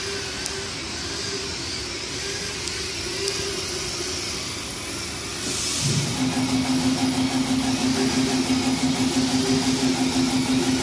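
Acctek 1325 CO2 laser cutting machine running while it cuts an acrylic sheet: a steady machine noise, joined about six seconds in by a louder steady hum with a fast pulsing beat as the laser head travels.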